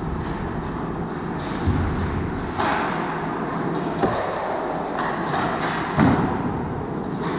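Ice hockey play in a rink: several sharp knocks and thuds of sticks, puck and boards, the loudest about six seconds in, over a steady noisy rink background.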